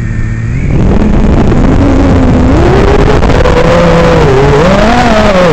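Realacc X210 racing quadcopter on a 4S battery: its brushless motors and propellers spin up to full loudness within the first second and lift off. A motor whine rises and falls in pitch with the throttle over a loud rush of propeller air.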